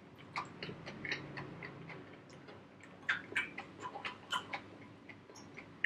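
A person chewing a mouthful of coconut curry and black rice close to the microphone: irregular wet mouth clicks and smacks, several a second.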